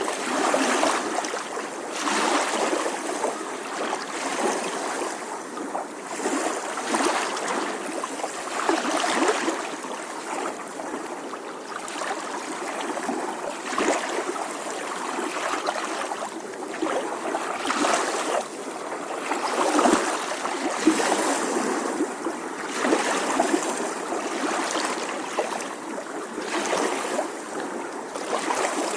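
Small ocean waves lapping on a shore, a continuous wash of water that swells and ebbs every few seconds.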